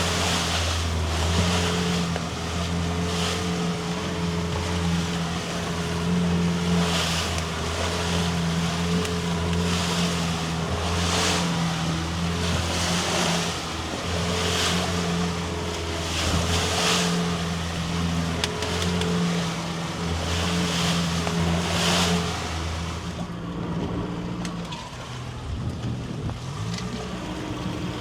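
Small fishing boat's motor running steadily under way, with water splashing and hissing along the hull every second or two. About 23 seconds in, the motor drops away, leaving wind and water.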